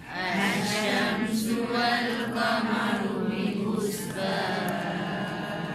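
A group of voices chanting a Qur'anic verse together in taranum style, practising the second tone, whose phrase ends on a level pitch.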